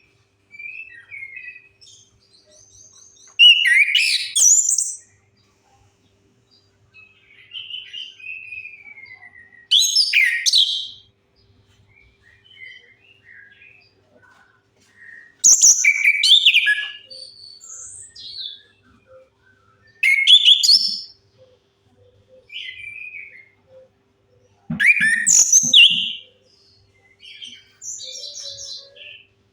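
Chestnut-capped thrush (anis kembang) singing, played as a lure to set a silent caged bird singing: loud, varied, high-pitched phrases about every five seconds, with quieter twittering and short whistled notes between them.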